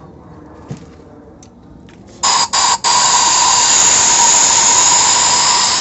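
Compressed-air blow gun blowing out a threaded bolt hole in the engine: two short blasts of air, then a long steady hiss with a whistling tone.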